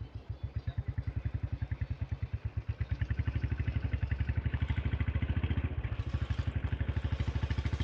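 Royal Enfield Bullet's single-cylinder engine thumping steadily under way, about nine or ten beats a second, growing a little louder over the first few seconds.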